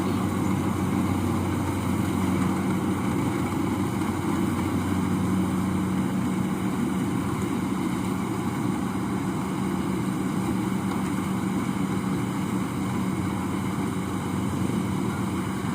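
Rice-harvesting machine's engine running steadily, an even low hum that holds the same pitch throughout.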